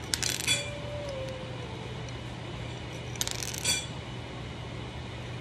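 Metal spoon and fork clinking against a ceramic plate in two short flurries, one at the start and one about three seconds in, over a steady low hum.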